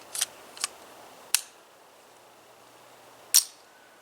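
Sharp metallic clicks from handling a Browning Buck Mark .22 pistol as it is readied to fire. There are three lighter clicks in the first second and a half, then a much louder, sharper click about three and a half seconds in.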